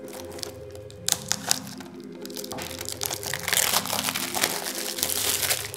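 Plastic shrink-wrap on a DVD case crinkling and crackling as the case is handled. A few sharp clicks come about a second in, and the crinkling grows dense from about halfway on.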